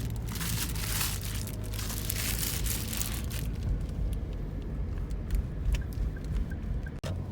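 Shipping packaging being handled and opened: crinkling and tearing for the first three seconds or so, then scattered light clicks and taps, over a steady low rumble.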